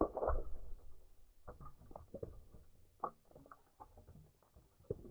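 A steel hammer head smashes an upturned terracotta clay pot with a sharp crash, the loudest moment. Broken clay shards then clatter and tick onto the concrete and the wooden stump for several seconds, ending in one more sharp click near the end.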